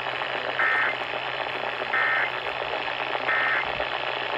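Emergency Alert System data tones: three short bursts of electronic warbling tones about 1.3 seconds apart, over steady radio hiss.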